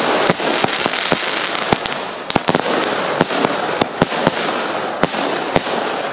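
Keller Graffity firework battery firing off in quick succession: a dense crackling hiss of bursting stars with sharp bangs scattered through it, fading near the end. It fires far quicker than expected, which the uploader puts down to a faulty unit.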